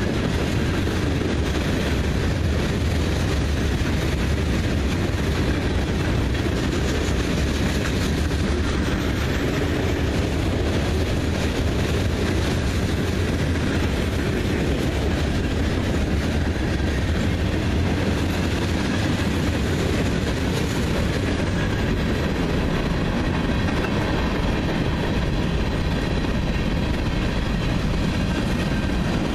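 Freight cars rolling past: a steady rumble of steel wheels on rail as a long string of boxcars and covered hoppers goes by.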